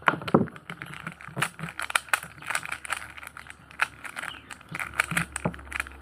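Hard plastic clicks and rattles of a 3x3 speed cube as its pieces are twisted and pried out to take it apart: a quick, irregular run of sharp clicks.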